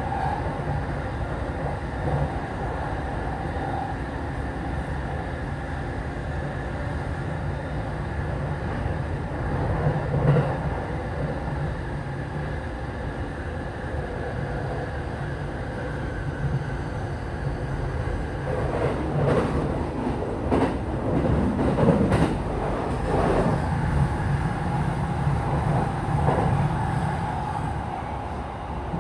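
Onboard running sound of a TWR 70-000 series electric train, heard inside the passenger car: a steady rumble of wheels and running gear on the rails. A few louder knocks and rattles come about two-thirds of the way through.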